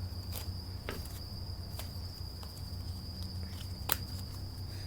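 A few sharp clicks and taps from tarot cards being handled, over a steady thin high-pitched tone and a low hum.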